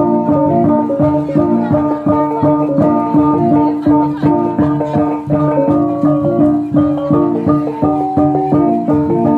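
Jrai funeral-dance music: a fast melody of short pitched notes over a steady pulse and a held low note.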